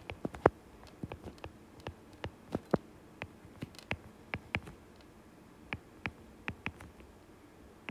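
Stylus tapping and writing on a tablet's glass screen: a series of sharp, irregular clicks as letters are handwritten.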